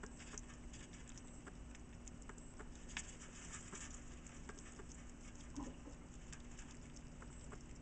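Faint, irregular small clicks and crackles as a pet hedgehog anoints itself, twisting and licking over pellet bedding, with a denser flurry of clicks about three seconds in.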